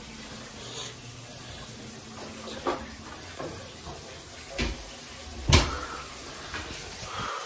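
Steady hiss of water running from a tap, with a few short knocks, the loudest about five and a half seconds in.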